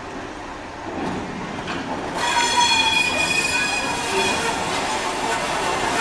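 Railway brake van and its locomotive moving slowly along the track. About two seconds in, a steady high-pitched squeal of wheels on the rails starts and holds.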